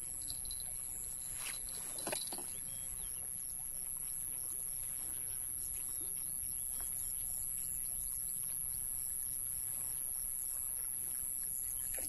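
Steady outdoor noise of wind buffeting the microphone and a flowing stream, with a constant high-pitched whine above it. Two light knocks come about one and a half and two seconds in.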